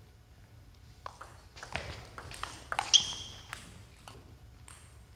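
Table tennis between points in a large hall: scattered light knocks and taps of the celluloid-type ball and footsteps on the court floor, no rally under way. About three seconds in comes the loudest knock, followed by a brief high squeak.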